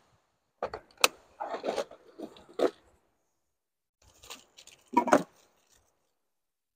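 Hands rummaging in a cooler: a sharp click about a second in, then rustling and scraping as things inside are handled, and a second burst of handling noise about five seconds in.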